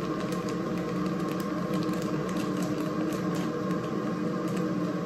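Thin plastic produce bag crinkling in short clicks as fresh herbs are handled and pulled out, over a steady low hum.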